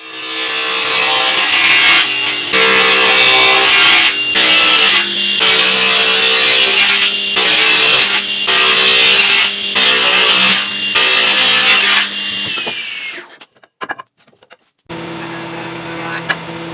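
Electric power saw cutting wood, a loud rasping cut over the constant hum of the motor, with brief dips about once a second as the cut loads and eases. About twelve seconds in the saw is switched off and its whine falls as the blade spins down. Near the end a quieter, steady machine hum starts up.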